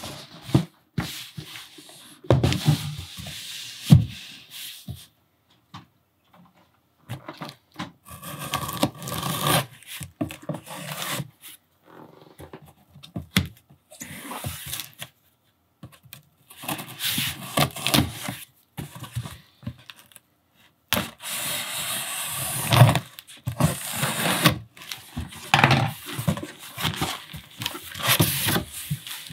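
Hands rubbing and scratching over a cardboard box, then a box cutter slicing along the packing tape on the box seam. Bubble wrap rustles near the end.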